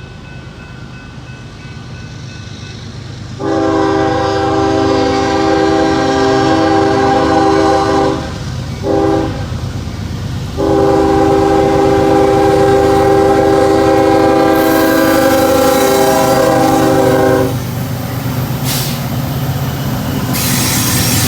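Diesel locomotive's multi-chime air horn sounding a long blast, a short blast and a long blast, the end of the grade-crossing signal, over the steady rumble of a passing train. After the horn stops, the rumble of the train and a hiss of rail and wheel noise go on.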